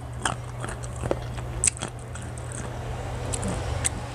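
Close-up chewing of crisp, unripe green mango, with several sharp crunches spread through.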